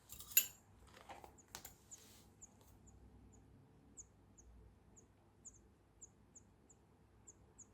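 A sharp handling knock about half a second in and a lighter one a second later, then a string of faint, short, high-pitched chirps, about two a second.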